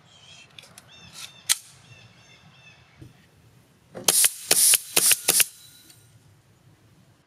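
Pneumatic nail gun firing: one sharp shot about a second and a half in, then four quick, loud blasts with an air hiss a little after four seconds. The gun is jammed and the shots drive no nails. Birds chirp during the first second and a half.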